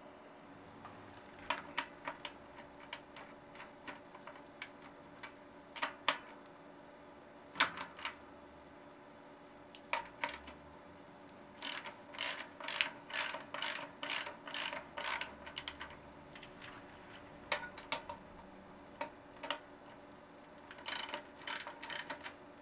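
Bicycle rear freewheel ratcheting as its cogs are turned by hand: the pawls click in short irregular runs, fastest at about four or five clicks a second midway, with scattered single clicks before.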